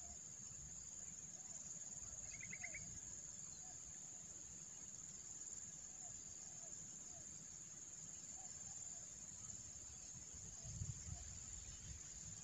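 Faint steady high-pitched drone of insects, with faint short chirps scattered through and a brief trill about two seconds in.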